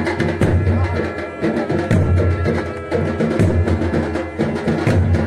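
Dhol drums beating a festival rhythm, heavy bass strokes about every second and a half with quicker stick strokes between, and a sanai (shehnai) holding its tune above them.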